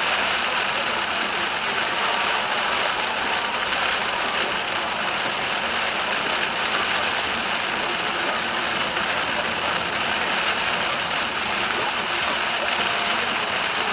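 Heavy rain with vehicle noise on a wet motorway: a steady, even hiss without let-up.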